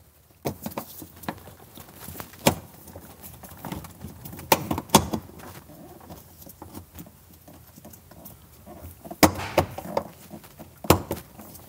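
Scattered plastic clicks and knocks with rubbing and glove rustle, as hands press and twist the plastic top of a Mercedes W203 fuel level sender into the fuel tank opening until it snaps into place. The sharpest clicks come in a few groups, the last just before the end.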